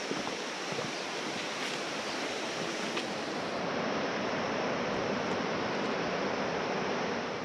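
Steady rush of a river flowing through the valley, a little louder from about halfway through.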